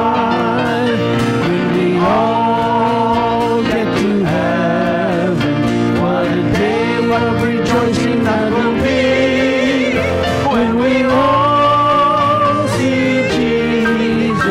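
Worship team of men and women singing a hymn together into microphones, accompanied by acoustic guitar and piano.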